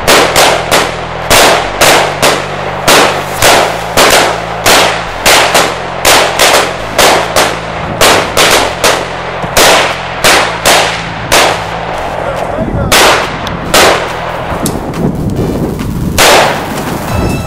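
Rapid gunfire, roughly two shots a second for about twelve seconds, then a brief pause and a few louder, more widely spaced shots.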